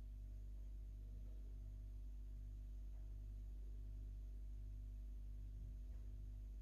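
Quiet room tone: a steady low hum, with a couple of faint clicks.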